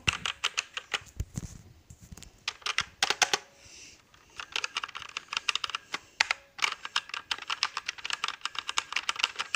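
Rapid typing on a Marvo Scorpion KG922 mechanical keyboard with linear red switches: fast runs of key clacks, broken by a short pause a little after three seconds in.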